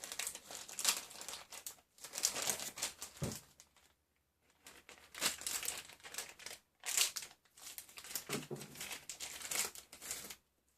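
Packaging of a new RC servo being opened and handled: crinkling and rustling in several bursts, with short pauses between them.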